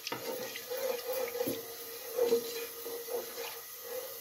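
Cardamom pods sizzling and crackling faintly in hot ghee in a non-stick pan as a wooden spoon stirs them, with a steady hum underneath.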